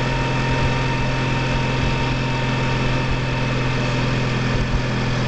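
Honda motorcycle engine running at a steady cruising speed. Its even hum holds one pitch throughout, over a constant rush of wind and road noise.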